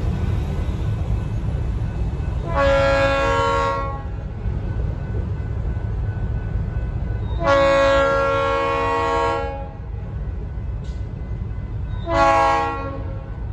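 Fort Worth & Western locomotive 2002's multi-note air horn sounding three blasts for a grade crossing: one of about a second, a long one of about two seconds, and a short one near the end, over a steady low rumble.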